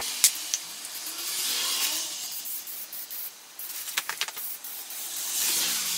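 Aerosol can of VHT caliper paint hissing as it sprays in passes over a brake caliper, with a few sharp clicks near the start and about four seconds in.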